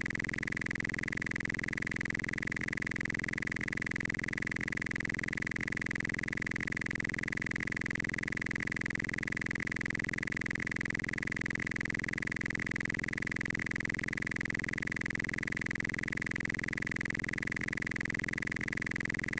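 A steady hum with a high-pitched whine over it, holding the same pitch and level without a break.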